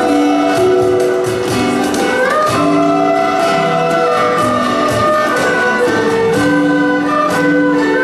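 A Chinese traditional instrumental ensemble plays a slow melody. Erhu carry the held, sliding melody over plucked acoustic guitar, lute and guzheng accompaniment.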